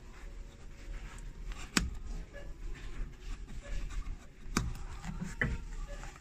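Old stitched leather welt being pulled and cut away from a Loake 201B shoe during resole strip-down: scraping and tearing of leather and thread, with two sharp clicks about two seconds and four and a half seconds in.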